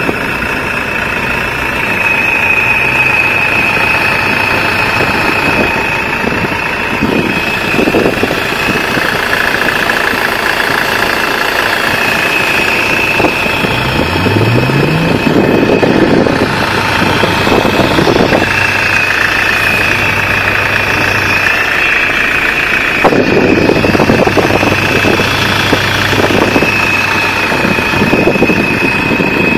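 Nissan Terrano hydraulic power steering whistling over the running engine: a high, steady whistle that comes and goes in stretches of a few seconds.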